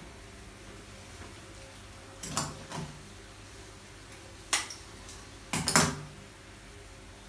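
Florist's shears snipping through leafy stems: sharp clicks in twos about two seconds in, a single snip at four and a half seconds, and a quick cluster of snips near six seconds, the loudest.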